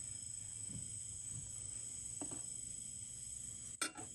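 Steady high-pitched chirring of crickets, with one sharp click near the end.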